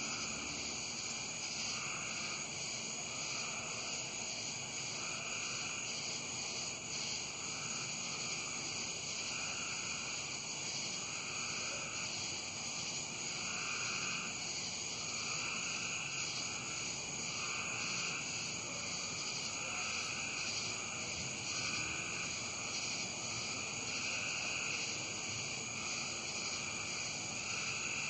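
Night-time chorus of insects and frogs: a steady high shrilling with a lower call pulsing about once a second.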